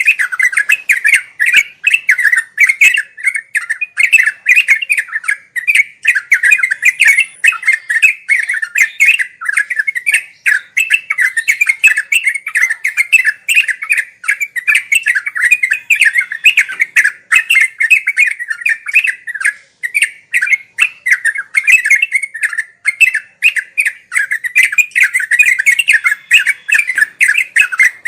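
Yellow-vented bulbul (trucuk) singing non-stop in fast, chattering phrases that run into one another with no real pause.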